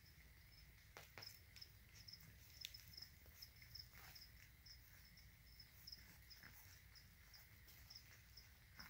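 Crickets in the lizard tanks chirping faintly: short high chirps repeating several times a second over a faint steady high tone. A few soft clicks and smacks come from the puppies eating raw ground beef.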